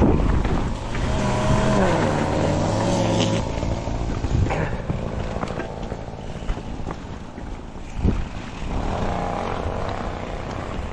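Mountain bike descending a wet trail: a steady rush of wind and tyre noise, with sharp knocks from the bike over bumps about halfway in and again later. A pitched, wavering drone sounds for a couple of seconds near the start, and more faintly near the end.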